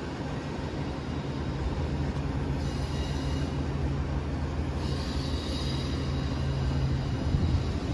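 Passenger train rolling slowly through the rail yard with a steady low rumble. Faint high-pitched wheel squeal comes in about two and a half seconds in, and again a little more strongly around five seconds.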